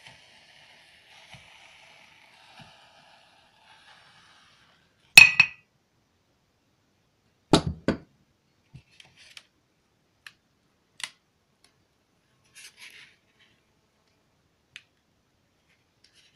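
A faint hiss fades over the first few seconds. About five seconds in comes one sharp, ringing metallic clink, and a couple of seconds later a heavier, duller clatter. A few light ticks and taps follow.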